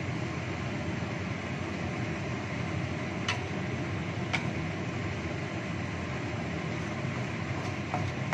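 Wok of chicken wings simmering in sauce over a gas burner, giving a steady rushing hiss. A wooden spatula stirs and knocks lightly against the wok a few times, about three seconds in, again a second later and near the end.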